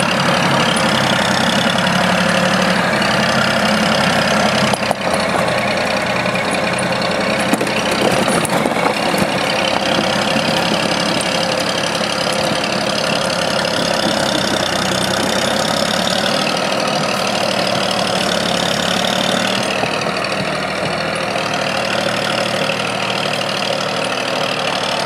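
Engine of a small Ödbjörn forestry forwarder running steadily as the machine drives loaded with logs, with a high whine that dips in pitch twice and a brief knock about five seconds in.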